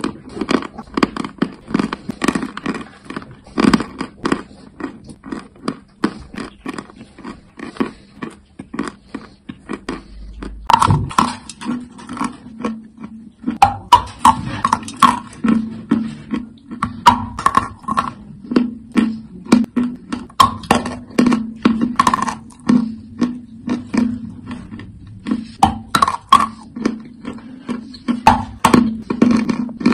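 Chalk crunching at close range: a fast, irregular run of sharp crackles and snaps, several a second. From about a third of the way in, a low steady hum runs beneath it.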